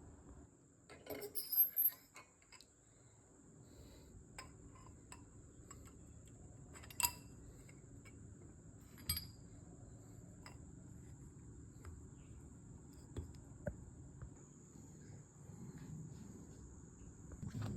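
Light clinks and taps of small hard objects being handled: a quick cluster about a second in, then two sharper, ringing metallic clinks a couple of seconds apart, and a few small ticks later, over a faint steady hum.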